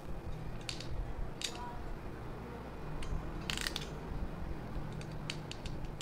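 Hexagonal ratchet crimping pliers being squeezed shut. The ratchet pawl clicks notch by notch, a few scattered clicks at first, then several quick clicks near the end as the tool locks fully closed.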